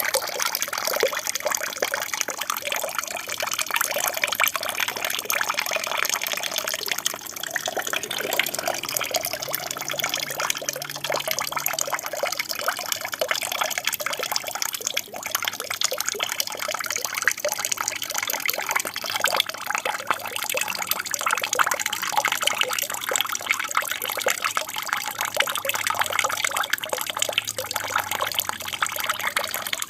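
Water from an aquarium's waterfall feature steadily splashing and trickling down into the tank.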